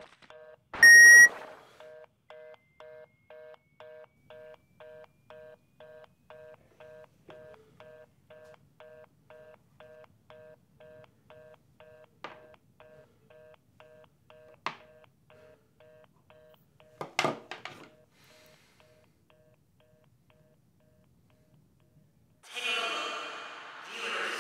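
A loud, short electronic beep about a second in, then a telephone line tone beeping about twice a second, like a fast busy signal after a call has been cut off. It fades away and stops after about twenty seconds, with a few sharp clicks, the loudest around seventeen seconds in, from a headset being handled. Near the end a broad swell of sound begins.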